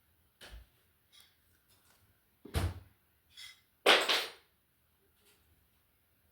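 Handling noise: a light knock, then a heavier thump, then a short rustling burst just before four seconds in, which is the loudest sound.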